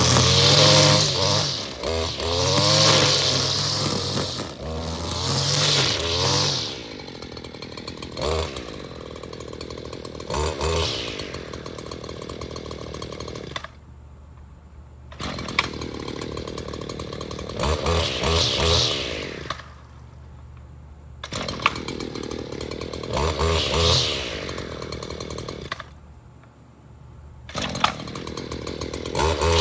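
Small two-stroke power-tool engine, test-run to check that it still works: it revs hard several times, drops back to idle, and gives repeated short throttle blips. It falls away briefly three times.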